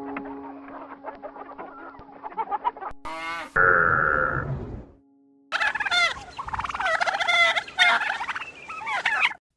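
Domestic fowl calling: a loud held call about three and a half seconds in, then after a brief silence a few seconds of rapid, warbling calls that cut off abruptly near the end.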